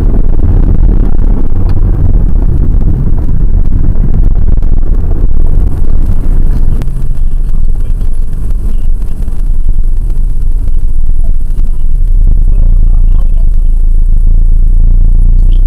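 Steady low engine and road rumble heard from inside a moving vehicle's cabin, picked up by a dash cam. It turns duller about seven seconds in.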